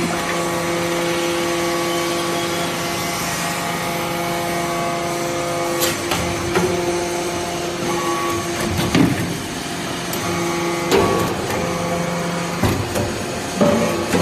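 Hydraulic briquetting baler for copper shavings running: a steady pump hum, with sharp metal clanks and knocks coming irregularly from about six seconds in.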